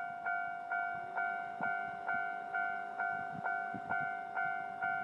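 Japanese railroad crossing warning bell ringing: an even, repeating clang a little over twice a second, each strike ringing on.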